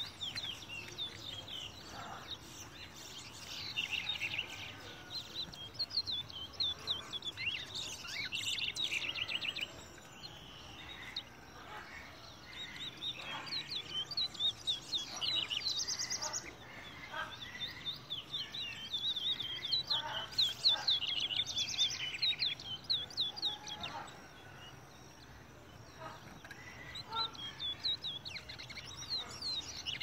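Caged towa-towa, a Guyanese seed finch, singing: phrases of several seconds made of fast, repeated high chirping notes, broken by short pauses.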